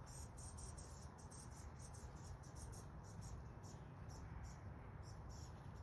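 A small bird's short, high-pitched peeps, repeated irregularly several times a second as it is fed.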